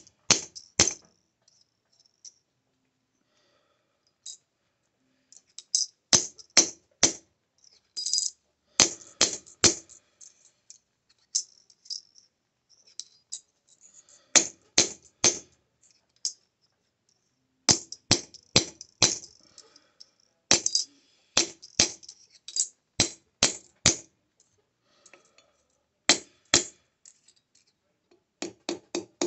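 Hammer striking a sterling silver square that is being hand-forged, in short runs of a few quick blows with pauses between. Each blow has a bright metallic ring, and a faster run of blows starts at the very end.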